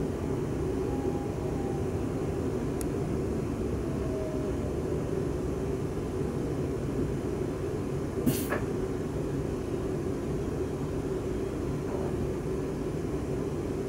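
Steady low running rumble heard inside the saloon of a Siemens Class 350 Desiro electric multiple unit as it slows along a station platform, with a faint whine falling in pitch. A single sharp click about eight seconds in.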